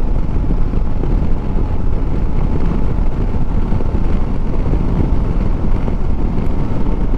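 Steady wind noise buffeting the microphone of a Royal Enfield Super Meteor 650 cruising at about 100 km/h. The rumble of its 648 cc parallel-twin engine and the tyres on the road sit underneath.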